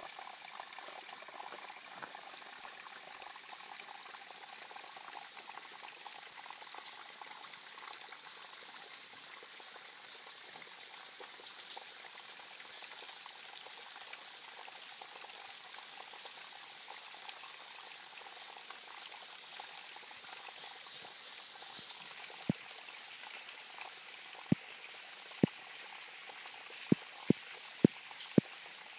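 Thin streams of water dripping and trickling off a mossy rock overhang: a steady splashing hiss. In the last several seconds about seven sharp, loud taps stand out above it.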